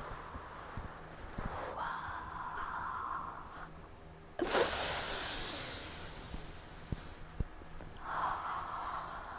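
A person breathing deeply and audibly in a slow breathing exercise: a long, soft inhale, then a sudden, louder exhale that fades over a couple of seconds, then another slow inhale starting near the end.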